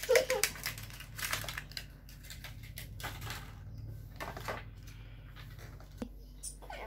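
Small plastic toy-kitchen pieces and their packaging being handled: a quick run of clicks and rustles at first, then scattered light clicks and one sharper knock about six seconds in.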